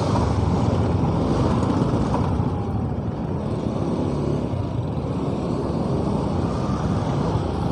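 Motorcycle running at low speed in slow traffic: a steady engine rumble mixed with road and wind noise.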